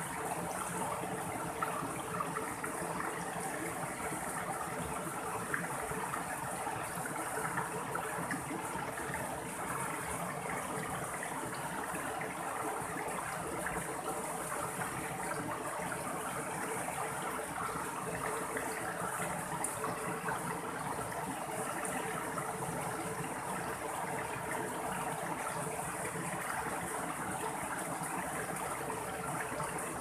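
Shallow rocky mountain stream flowing and splashing over small cascades between boulders: a steady, even rush of water.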